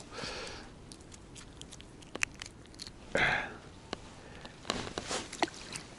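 Quiet close handling noises from fishing tackle and catch: scattered small clicks and rustles, with a short sniff or breath about three seconds in.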